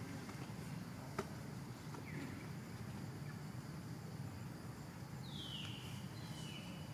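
A steady outdoor background with a single sharp click about a second in, then two short high-pitched animal calls near the end, each falling in pitch.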